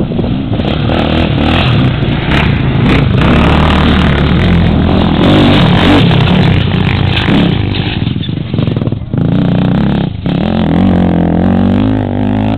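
Racing quad (ATV) engine at high revs, approaching on a gravel trail and getting louder until it passes close and loud about halfway through. The engine note then drops back, and a steadier engine tone, rising slightly in pitch, carries on near the end.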